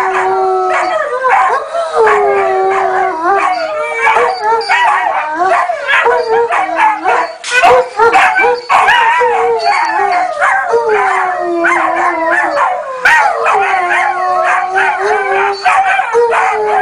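Central Asian Shepherd (Alabai) adult and puppies howling in chorus along to a mobile phone: one lower voice holding long notes while several higher puppy voices waver and yip over it, without a break.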